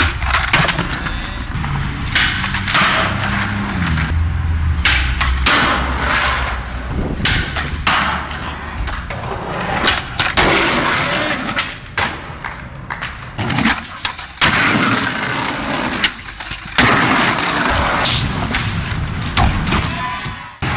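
Skateboard tricks on concrete: wheels rolling, tails popping, trucks grinding on a metal handrail and a ledge, and boards slapping down on landings, in several short separate bursts.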